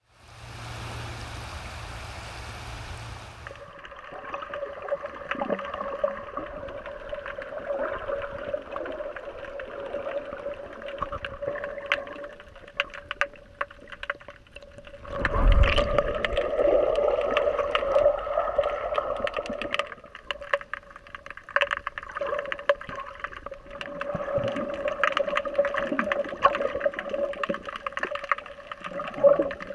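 The first few seconds are rushing wind-and-surf noise in the open air. Then the sound goes underwater, heard through a snorkeler's camera: muffled water noise with a steady hum, scattered crackles and clicks, and about halfway through a loud knock followed by a few seconds of louder swirling and gurgling water.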